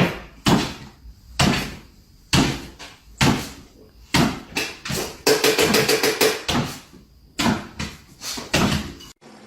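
A series of sharp knocks or thuds, roughly one a second, with a short pause near the end.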